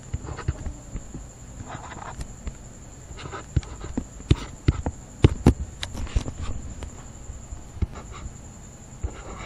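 Irregular taps, clicks and short scratching strokes of a stylus on a writing tablet as digits are handwritten, over a faint steady high-pitched whine.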